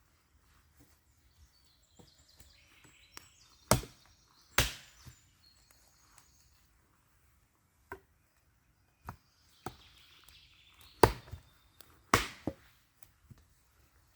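Axe chopping wood: sharp, separate strikes. Two loud blows come about four seconds in and two more about eleven seconds in, with lighter knocks between them.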